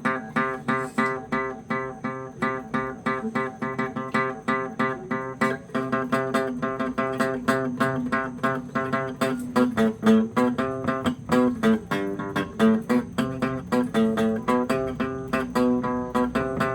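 Guitar played solo: a steady stream of plucked notes, several a second, over a ringing lower note.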